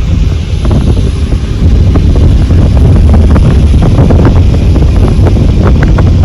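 Hurricane-force wind buffeting the microphone: a loud, steady low rumble that grows louder about a second and a half in, with scattered sharp ticks.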